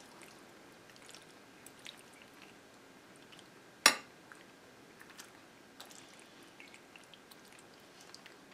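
Metal spoon spreading saucy penne pasta in a glass baking dish: soft squelching with faint clicks, and one sharp clink of the spoon against the glass a little under four seconds in.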